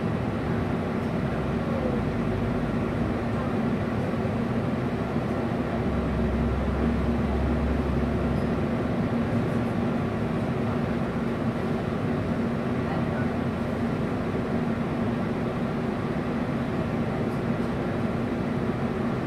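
Cabin hum of a MAN NL323F Lion's City single-deck bus standing still with its diesel engine idling, heard from inside near the front: a steady drone with a constant low tone, and a deeper rumble that swells briefly about six seconds in.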